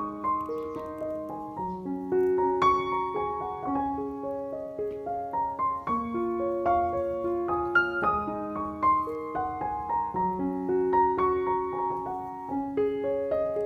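Background piano music: a gentle, flowing melody of notes played in continuous succession.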